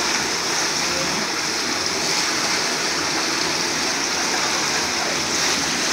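Steady rush of running floodwater in a rainstorm, an even torrent with no breaks.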